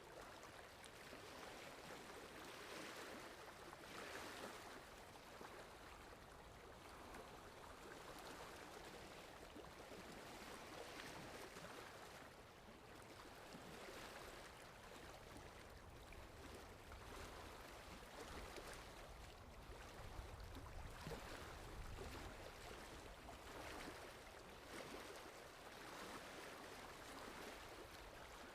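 Faint sea waves washing in: a steady hiss that swells and eases every few seconds.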